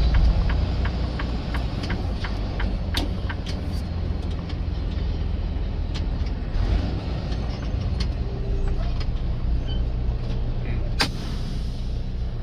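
Semi truck's diesel engine running with a steady, deep rumble. A fast, even ticking runs through the first two seconds, and a sharp click comes near the end.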